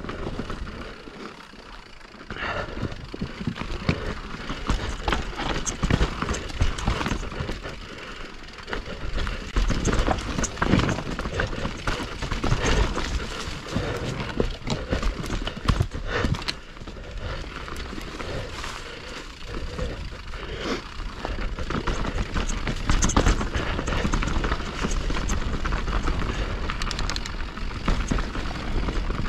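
Mountain bike descending a rocky trail: tyres and frame clattering and rattling over rocks in a dense, irregular run of knocks, over a low rumble.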